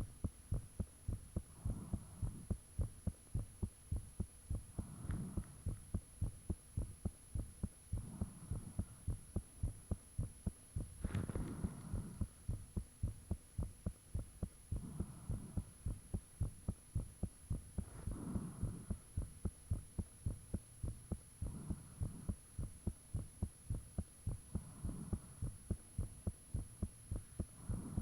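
A human heartbeat heard up close: regular low thumps about twice a second, with a soft swell of rushing noise about every three seconds. A faint steady hum lies under it, and the heart is beating hard and thumpy.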